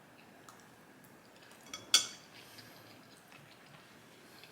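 Quiet eating sounds, with one sharp click about two seconds in and a few faint ticks.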